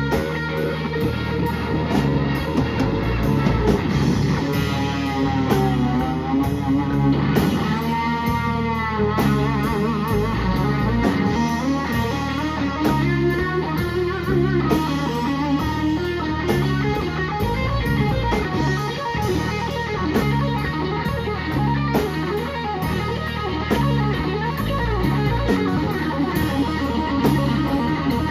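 Live blues-rock trio playing an instrumental passage: a Delaney electric guitar through a Fender Super Reverb amp plays lead lines with wavering string bends and vibrato, over electric bass and a drum kit.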